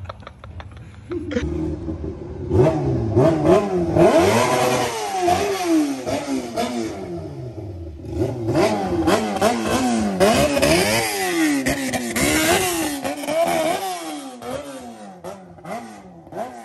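Motorcycle engine being ridden, its revs climbing and dropping back again and again as the throttle is worked and it shifts, starting about a second in and fading near the end.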